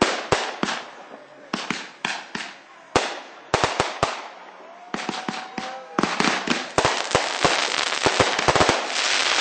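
Fireworks going off: sharp bangs spaced out over the first few seconds, then a dense run of rapid crackling and popping from about six seconds in.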